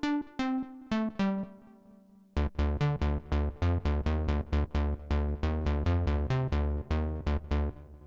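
Access Virus TI2 Polar synthesizer playing a digital preset. A few bright plucked notes step down in pitch, then about two seconds in a fast repeating pattern of bright plucky notes over deep bass hits starts, and it stops just before the end.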